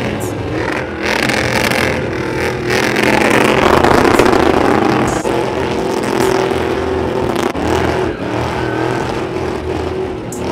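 Pickup truck's engine revving high and held near the top of its rev range while its rear tyres spin in a smoky burnout.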